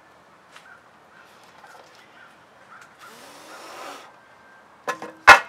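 A stretched canvas scraping briefly as it is turned on a wooden work table about three seconds in, then a single sharp knock near the end, the loudest sound.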